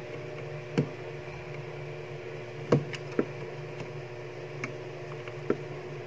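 A few short clicks and knocks as the refrigerator's defrost sensor is handled and fitted back into place, the loudest about a third of the way in, over a steady low hum.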